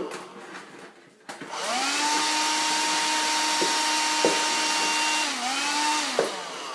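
Vacuum cleaner motor starting up about a second and a half in, its whine rising to speed and then running steadily. Near the end the pitch dips and recovers twice.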